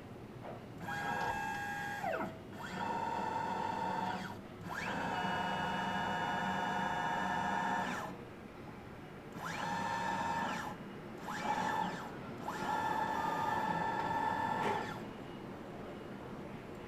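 Electric motor driving a stage, whining in six runs of one to three seconds each, with its pitch sliding up or down as each run starts and stops. This is the strange motor noise from a stage that does not move.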